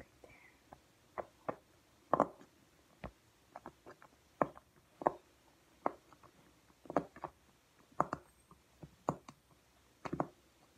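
Silicone Pop-It fidget toy's bubbles being pressed through with fingers, giving short, irregular pops about one or two a second.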